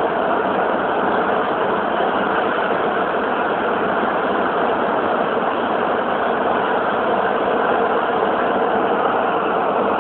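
Beijing Subway Line 8 train running between stations: a steady, even rush of running noise with no breaks.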